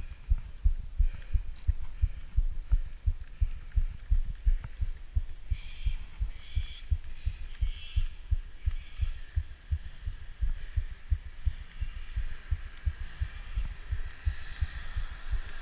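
Low, irregular thumping rumble on the camera microphone, several thumps a second, as wind buffets the mic.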